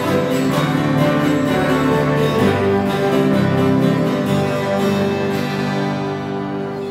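Small worship band playing instrumentally: strummed acoustic guitars with saxophone and piano. Near the end the final chord is held and the music fades away.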